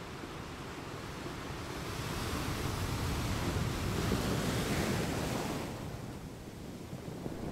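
Sea surf on the beach: a wave washes in, swelling about two seconds in and dying away by about six seconds.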